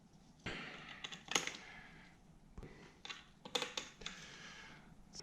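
Irregular light clicks and clatters of hand tools and small metal parts being handled while a motorcycle's cylinder head is put back together, some coming in quick clusters.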